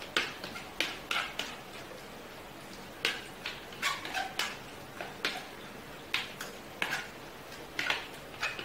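A spoon scraping and knocking against the inside of a plastic bowl as it is stirred, in short irregular strokes about one or two a second.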